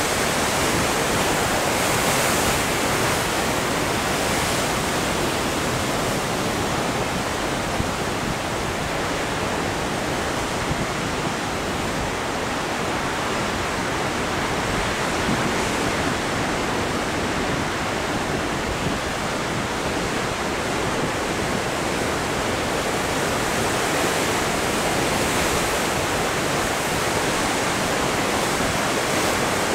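Heavy ocean surf breaking on rocks and churning white water, a steady, even roar with no single crash standing out.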